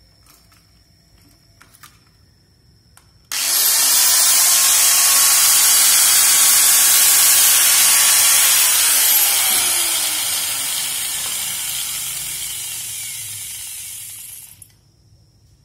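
Electric grinder grinding down the metal shaft of a washing-machine pump motor, with the shaft spinning so it wears evenly. The loud hissing grind starts suddenly about three seconds in and holds steady. In its second half it fades, with a faint whine falling in pitch, then stops sharply near the end.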